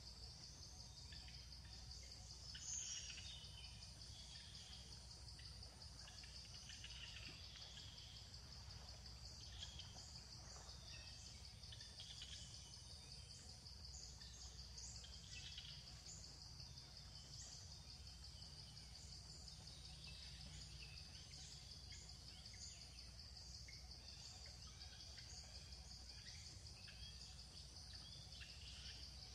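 Faint natural ambience: a steady high-pitched insect drone with scattered short bird chirps over a low background rumble.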